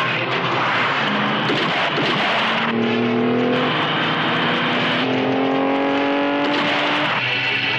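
Car engine revving hard at speed, its pitch climbing in two long rises, about two seconds in and again about five seconds in, over a steady rush of noise.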